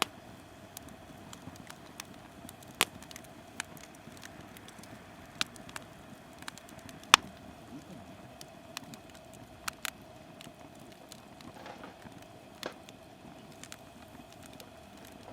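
Softwood (conifer) firewood burning in a small campfire, crackling with irregular sharp pops, the loudest about seven seconds in.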